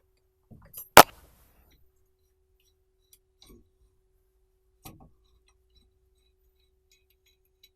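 Metal tools knocking on car parts: one sharp, loud strike about a second in, with smaller knocks just before it and two lighter knocks later, at about three and a half and five seconds.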